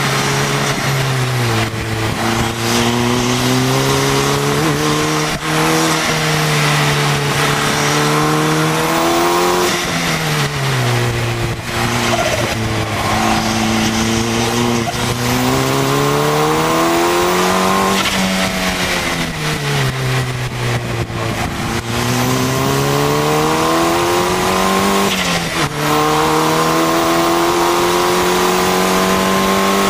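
KTM X-Bow's turbocharged four-cylinder engine at race pace from inside its open cockpit. The revs climb steadily through the gears, drop sharply on braking and downshifts around 18 and 25 seconds in, and climb again, over a constant rush of wind.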